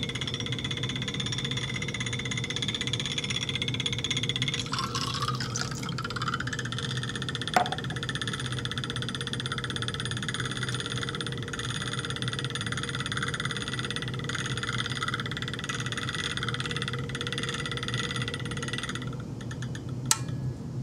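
Magnetic stirrer running with a steady hum and whine. About five seconds in the whine shifts up in pitch and holds there. Short clicks come about seven and a half seconds in and near the end.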